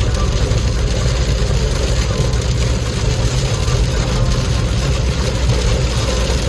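Heavy rain on a moving car, a steady dense hiss of rain over a low, even rumble of engine and road noise.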